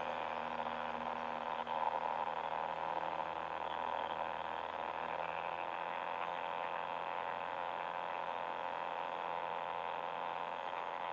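Steady cockpit drone of a Zenith 750 Super Duty's turbocharged Viking 180 engine and propeller, throttled back to reduced power on final approach.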